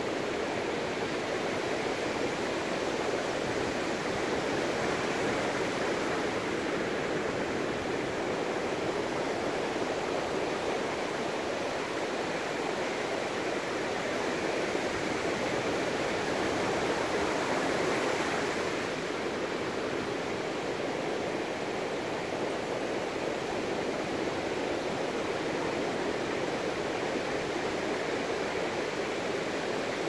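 Sea surf washing onto a sandy beach: a steady rushing wash that swells a little about five seconds in and again from about sixteen seconds, easing off at about eighteen.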